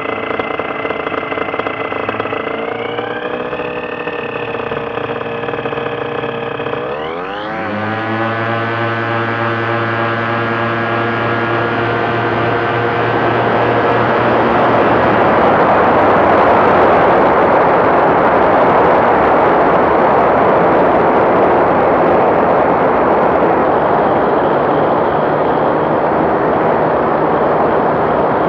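Ultralight aircraft's small engine running at low power, then throttled up sharply about seven seconds in to a steady higher pitch. A loud rushing of air builds over it and grows to drown the engine note.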